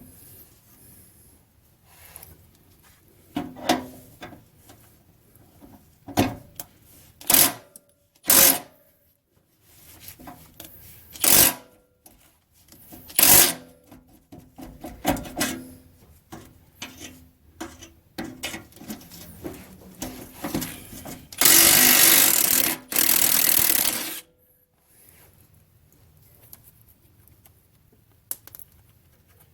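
Power tool run against rusted bolts on a car's underside: a handful of short bursts, then one longer burst of about two and a half seconds with a brief break in it.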